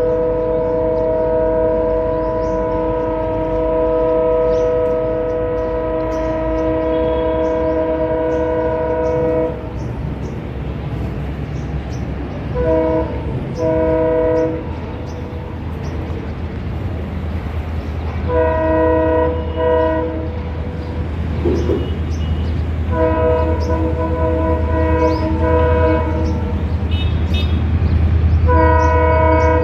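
Indian Railways locomotive horn, a multi-note chord, sounding one long blast of about nine seconds and then a run of shorter blasts, several in quick pairs, as the train approaches. Under it the low rumble of the running train grows louder toward the end.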